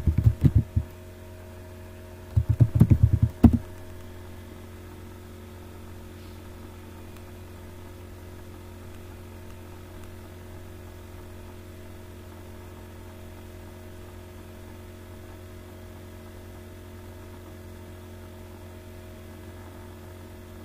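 Computer keyboard keys typed in two quick runs within the first few seconds, then a steady low electrical hum.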